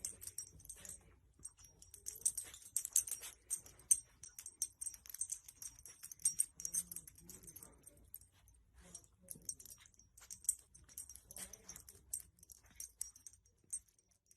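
Small dog moving about with light metallic jingling and clicking in irregular short spurts, like collar tags.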